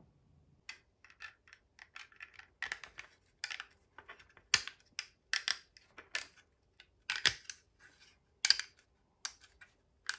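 Small 3D-printed plastic model parts handled and fitted together: irregular clicks, taps and light scrapes of plastic on plastic.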